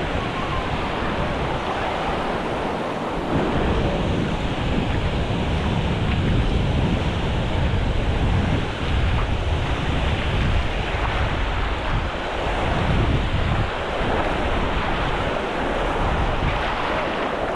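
Ocean surf washing onto the beach, a steady rushing noise, with wind buffeting the microphone in low rumbling gusts.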